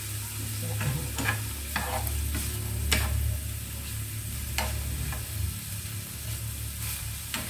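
Pork pieces sizzling in a frying pan as a metal spatula stirs them, scraping and clacking against the pan at irregular intervals. A steady low hum runs beneath.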